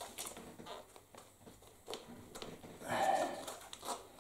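Tire levers clicking and scraping against a bicycle rim as the bead of a knobby mountain-bike tire is pried over the rim edge. There is a short effortful exhale about three seconds in.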